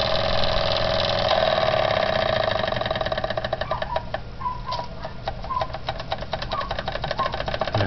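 Jensen 75 toy steam engine running on superheated steam, a fast, even mechanical chatter of exhaust beats and moving parts. About a second in, its steady hum breaks up into distinct rapid beats.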